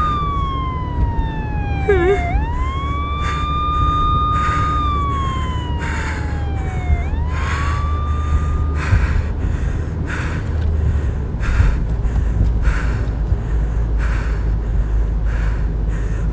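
Emergency-vehicle siren: a tone held high, sliding slowly down and snapping back up, twice, then cutting off about nine seconds in. A steady low rumble from a car runs underneath.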